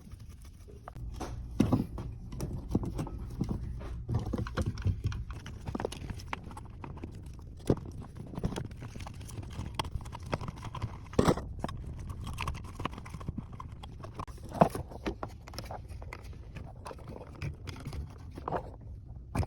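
Irregular clicks, taps and knocks of hands handling and fitting parts at a broken electrical outlet box, over a low steady hum.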